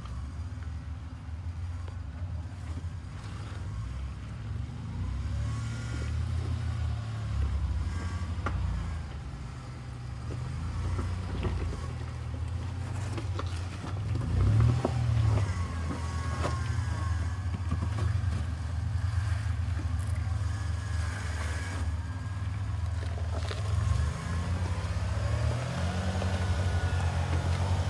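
Toyota Tacoma pickup's engine running at low revs as the truck crawls over boulders in low crawl gearing (a Marlin Crawler 4.70 crawl box), with its revs rising briefly about halfway through and again near the end. Scattered knocks are heard through the middle.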